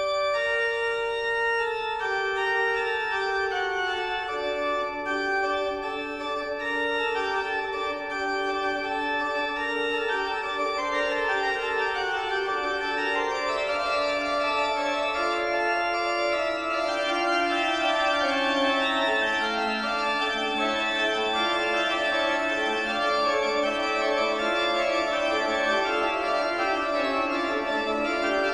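Background music of slow, sustained chords, each held for a second or two before moving to the next.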